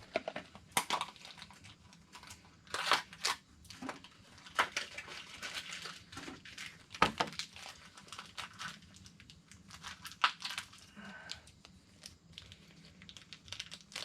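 Mystery pin packaging being opened by hand: a blind-box pin's black foil bag crinkled and torn, with irregular crackles, rustles and sharp snaps.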